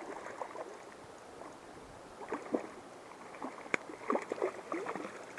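Water splashing and sloshing in short, irregular bursts, with one sharp click a little after the middle.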